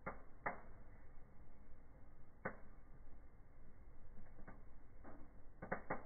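Wood fire in a fireplace crackling: scattered sharp pops from the burning boards, about seven in all, with a quick cluster of pops near the end, over a steady low rush.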